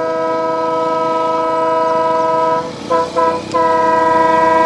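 Diesel locomotive's horn sounding as the train approaches: a long blast, then two short toots about three seconds in, then another long blast.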